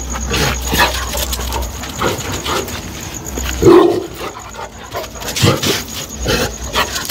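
A dog barking, with one loud bark about halfway through among other short, irregular dog sounds.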